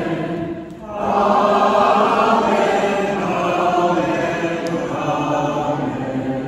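Minister's voice leading a congregation in a slow sung 'Amen', drawn out in long held notes, with a brief break just under a second in.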